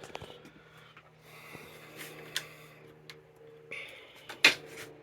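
A person sniffing through the nose, with a short sharp cough-like burst near the end, over a few small clicks from handling small parts.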